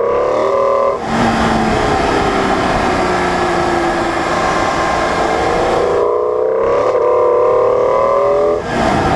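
BMW E46 M3's 3.2-litre S54 straight-six pulling hard under acceleration, its intake sound heard close up from the front bumper over road and wind noise. The pitch drops at a quick upshift about a second in, then climbs again from about two-thirds of the way through to another short break for a gear change near the end.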